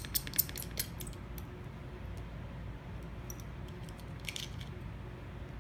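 A quick run of small metallic clicks and ticks in the first second, then one short scratchy sound about four seconds in: a precision screwdriver and small tools working on the iPhone 6's tiny screws and metal parts.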